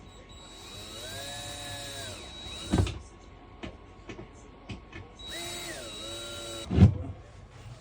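Power drill driving screws into flat-pack furniture parts: two runs of a couple of seconds each, the motor speeding up and slowing, each ending with a sharp knock.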